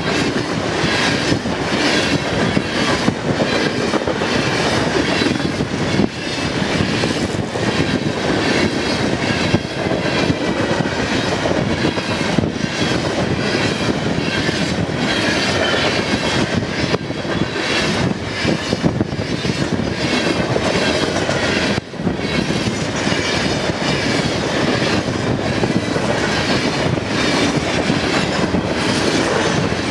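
Freight train of covered grain hopper cars rolling past: a steady loud rumble and rattle of steel wheels on rail, with repeated clickety-clack as the wheels cross the rail joints.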